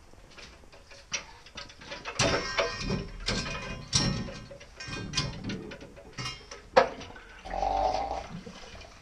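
Irregular knocks, clanks and scraping of a backup sump pump being handled and set into a metal bracket, with one sharp knock about seven seconds in and a short steady sound just after it.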